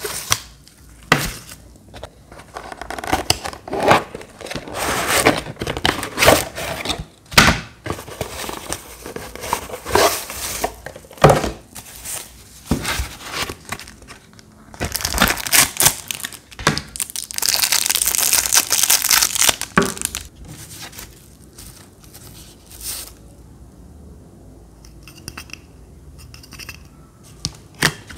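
Paper and plastic packaging rustling and crinkling as parts are pulled from a small cardboard box and unwrapped. Sharp crackles come in quick succession, then a long, dense crinkle about halfway through. Near the end there is only lighter handling.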